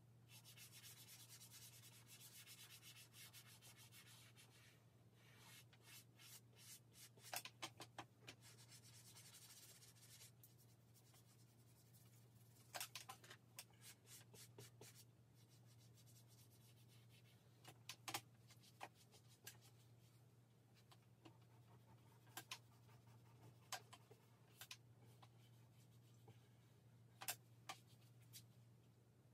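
Soft drawing stick scratching and rubbing across drawing paper in strokes, with scattered sharp taps. A faint steady low hum runs underneath.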